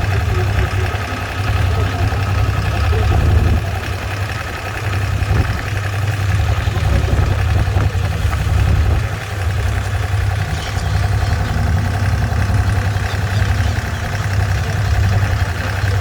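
A boat's engine running steadily under way: a loud, low drone that swells and eases slightly.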